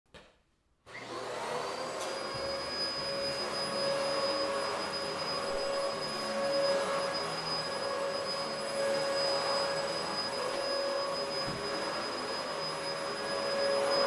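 Vacuum cleaner switched on about a second in, its motor spinning up to speed and then running steadily with a high whine over a rush of air.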